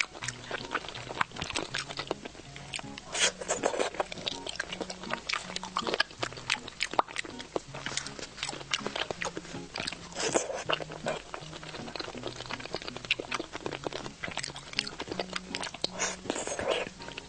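Close-miked chewing and biting of bobo chicken skewer food soaked in chili oil: wet clicks and crunches, with louder bites about three, four, ten and sixteen seconds in. Soft background music with a slow low melody plays underneath.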